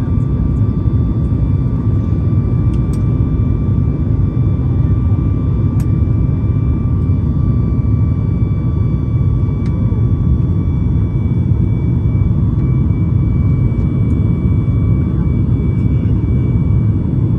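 Steady cabin noise of a Boeing 737 MAX 8 in its climb after takeoff: the low rumble of its CFM LEAP-1B engines and the airflow, with a faint steady whine on top.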